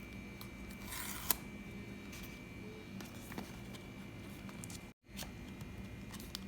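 Apple Watch's cardboard packaging being opened by hand: faint scraping and tearing with scattered small clicks, the sharpest click about a second in. The sound cuts out briefly about five seconds in.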